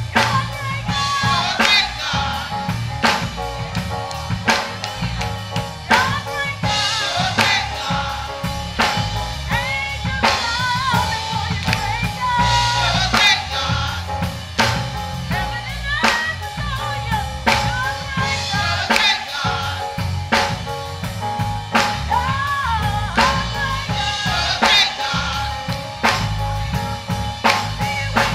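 Gospel choir singing with a live band, a drum kit keeping a steady beat under a bass line.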